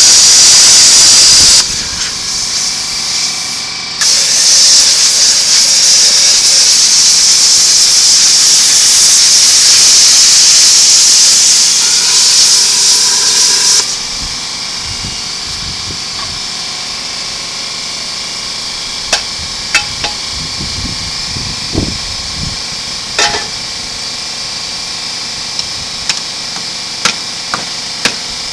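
Handheld cut-off wheel grinding through the steel shell of a scroll compressor with a loud, high hiss, easing off briefly about two seconds in and stopping about 14 seconds in. After that a steady machine hum runs underneath while the cut steel shell is handled, with a few sharp metal clanks near the end.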